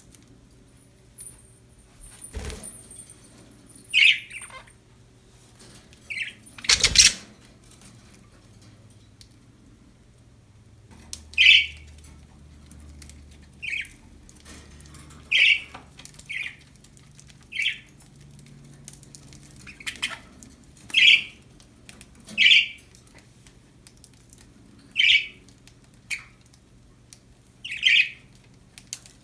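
Pet budgerigars giving short, sharp single chirps, one every second or two, after two brief thuds in the first several seconds.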